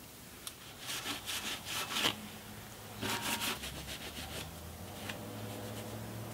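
A cloth rubbed back and forth along the oil pan flange of an engine block, in quick, even scrubbing strokes: one run about a second in and another around three seconds in, then lighter wiping.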